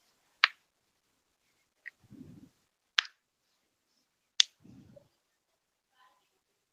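Three sharp clicks about a second and a half apart, each followed by a faint low rumble.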